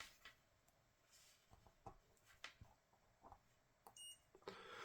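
Near silence with a few faint handling clicks, and about four seconds in a short, high electronic beep from a multimeter during a check of the battery connector wiring for shorts.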